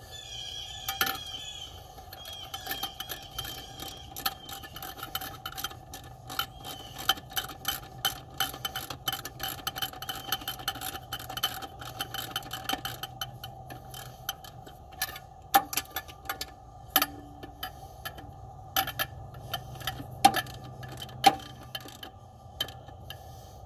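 Ratchet wrench clicking in quick runs as bolts are run in under the hood, with a few louder metallic clicks in the second half.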